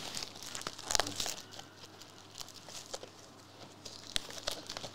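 Plastic crinkling and rustling as a shrink-wrapped trading-card booster box is handled, with scattered small clicks and taps; the loudest crackle comes about a second in and a sharp tap near the end.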